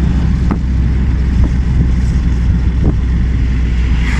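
Road noise heard from inside a moving car: a steady low rumble of engine and tyres, with a few light knocks from the ride.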